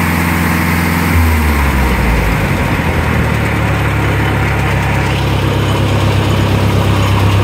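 Wisconsin W4-1770 air-cooled four-cylinder gasoline engine running steadily. About a second in its speed changes, and it settles into an even run again.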